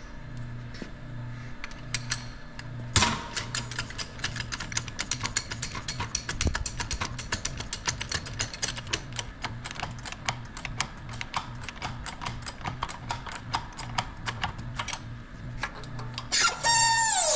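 Hand-pumped hydraulic shop press working as it presses a steel planet-gear post into a final-drive carrier plate: a long run of rapid metallic clicks, then a loud squeal falling in pitch near the end.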